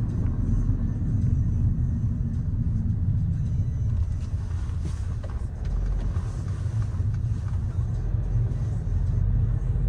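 Steady low rumble of a car driving slowly in city traffic: engine and road noise.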